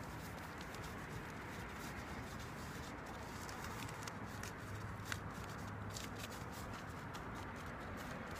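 Faint rustling and crackling of potting soil being brushed over freshly sown seeds by hand in an opened plastic bag of garden soil: scattered small crackles over a steady hiss.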